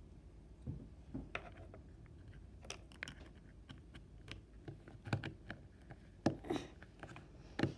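Scattered light plastic clicks and taps as snap-on lids are pressed onto plastic Scentsy wax pods and the plastic container around them is handled. The taps come irregularly, a few of them louder around the middle and near the end.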